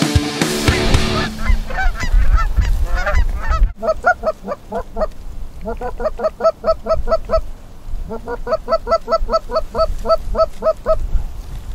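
Goose honking in fast, regular runs of about four honks a second, in several stretches with short breaks between them. Music ends about a second in.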